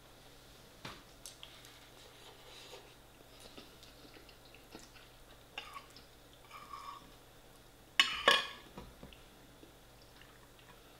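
Quiet eating sounds: soft chewing and small clicks of a metal fork on a ceramic plate as rice is scooped up, with one louder sharp clatter about eight seconds in.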